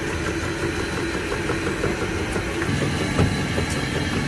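A steady engine hum, with its pitch shifting about two-thirds of the way through.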